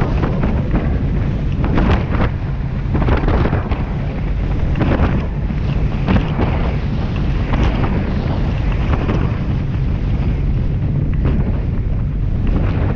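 Heavy wind buffeting the microphone of a rigid inflatable boat running fast over choppy sea, under a steady low rumble, with irregular splashes as the hull slaps through the waves and throws spray.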